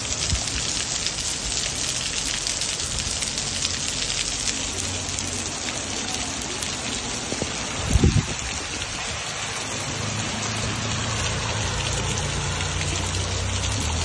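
Heavy rain pouring onto a paved street, a steady hiss, with one brief low thump about eight seconds in.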